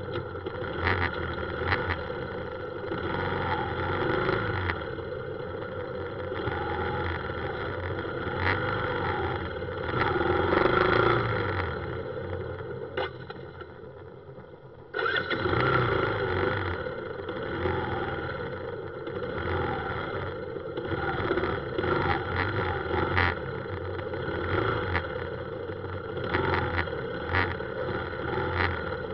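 Motorbike ride through dense city traffic: a small motorbike engine running amid other scooters and cars close by, with road noise and frequent short knocks. The sound fades for a couple of seconds just past the middle, then comes back suddenly.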